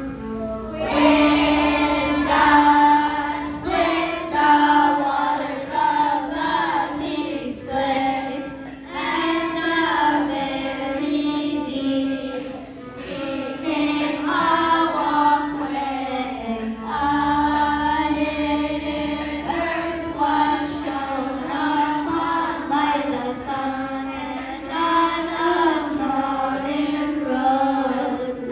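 Children's choir singing a hymn together, with sustained low accompanying notes underneath.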